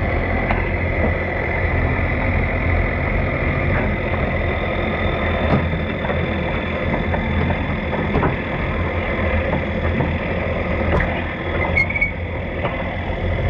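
Diesel garden tractor engine idling steadily, with a low even rumble and no revving.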